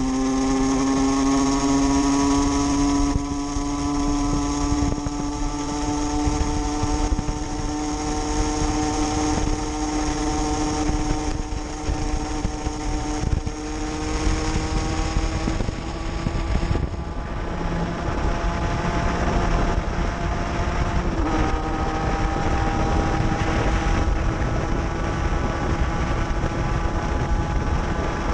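A 50cc two-stroke motorcycle engine running at steady cruising revs, its pitch slowly rising, with a brief dip about two-thirds of the way through. Wind and road rush from riding run underneath.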